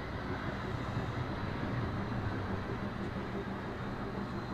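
Model train running on the layout's track: a steady low hum and rumble from its motor and wheels.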